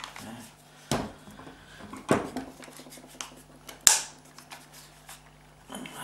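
Plastic and metal parts of an automatic gear selector assembly clicking and knocking as it is handled, with four sharper knocks about a second apart, the loudest about two-thirds of the way through, and lighter ticks between.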